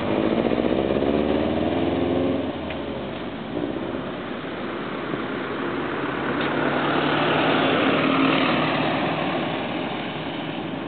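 A bus engine accelerating away, its pitch rising for about the first two seconds. Then a car drives past with engine and tyre noise, building to its loudest about eight seconds in and fading.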